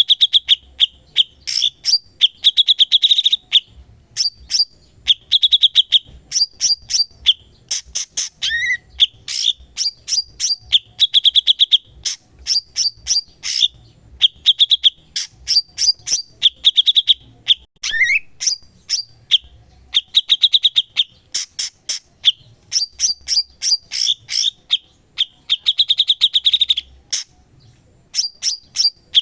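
A cucak cungkok songbird singing continuously in fast phrases of sharp, high chip notes and quick buzzy rattles, broken by brief pauses. It also gives a rising whistled note twice, about a third of the way in and again past halfway.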